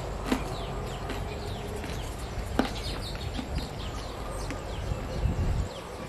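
Birds chirping, many short downward-sliding calls repeating throughout, over a steady low outdoor rumble. Two sharp taps stand out, one just after the start and one about two and a half seconds in.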